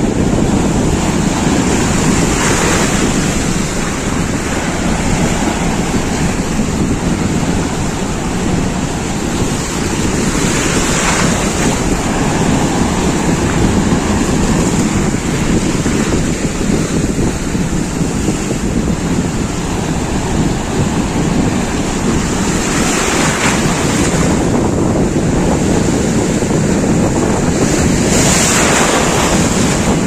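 Sea surf breaking on a rocky shore with wind buffeting the microphone: a steady, loud rushing noise with a few brief louder surges.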